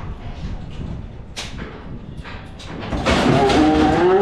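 A few light knocks and clicks, then about three seconds in a loud moo from cattle begins, its pitch rising and then holding.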